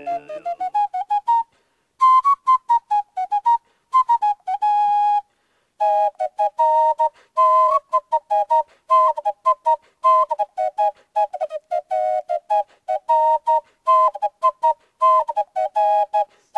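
A flute-like wind instrument with a pure, whistling tone plays a quick melody. It pauses briefly twice, and from about six seconds in it sounds two notes at once.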